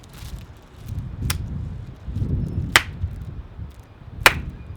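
Three sharp claps about one and a half seconds apart, made as loud peaks to test the camera's audio level for clipping. Beneath them, gusting wind rumbles on the microphone, which has no windshield.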